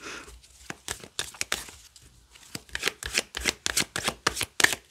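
A deck of tarot cards being shuffled by hand: a run of quick, soft clicks as the cards slide and flick against each other. It pauses briefly about two seconds in, then picks up again.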